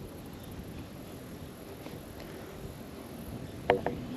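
Wind on the microphone, a steady low rush, with two short sharp clicks in quick succession near the end.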